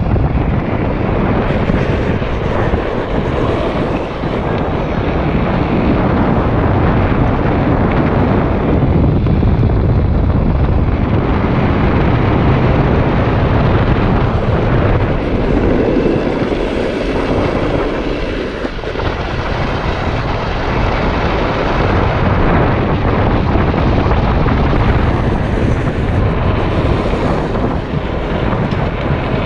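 Continuous rush of wind buffeting the camera microphone, mixed with the rumble of a drift trike's wheels running on asphalt during a fast downhill run, easing slightly for a moment about two-thirds of the way through.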